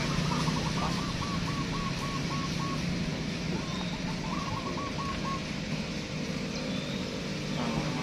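Caged zebra doves (perkutut) cooing: a long run of quick, evenly spaced notes, then a shorter run about three and a half seconds in, over a steady low rumble.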